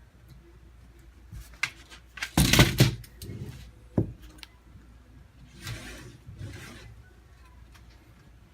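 Hands working with tools and a screen frame: scattered clicks and rubbing, a loud clatter about two and a half seconds in, a single sharp knock at four seconds, then two softer scraping rustles near six seconds.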